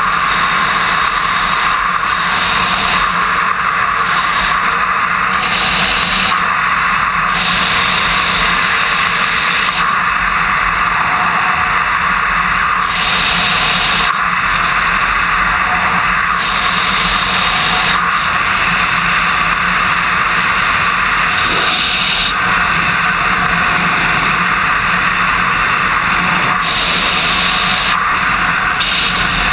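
Loud, steady rush of wind over the camera microphone during wingsuit flight, its hiss shifting a little every few seconds.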